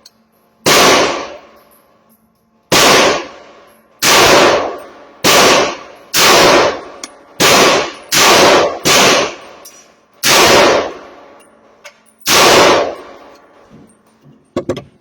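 Ten semi-automatic shots from a 16-inch AR-15 rifle chambered in 300 Blackout firing 147-grain full metal jacket ammunition, fired one at a time at an uneven pace of about one to two seconds apart, each a sharp loud crack with a brief ringing tail.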